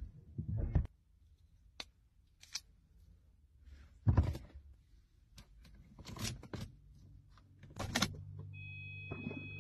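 Scattered clicks, taps and rustles of handling inside a parked Mercedes-Benz's cabin, with a louder knock about four seconds in and a short jangling rattle near eight seconds. Over the last few seconds a steady low hum sets in, joined by faint high steady tones, as the car's electrics sit switched on before the engine runs.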